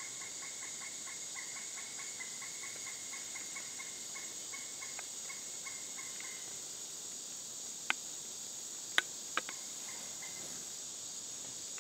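Woodland ambience with a steady high insect drone. Over it, a fast run of evenly repeated chirps, about four a second, stops about six seconds in. A few sharp clicks come near the end.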